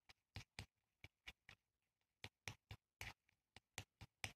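Faint, irregular little clicks and taps, a few a second, of a stirring stick knocking against the metal wax-melting spoon as the molten sealing wax is stirred.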